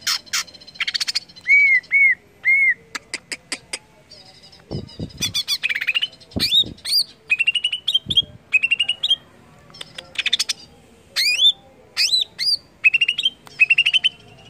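Greater green leafbird (cucak ijo) singing a loud, varied song: bursts of rapid chattering trills, chirps and sharply rising whistled notes, with brief pauses between phrases.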